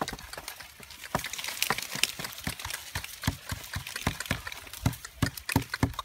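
Dry grass and leaves crackling and rustling: a rapid, irregular string of sharp crackles.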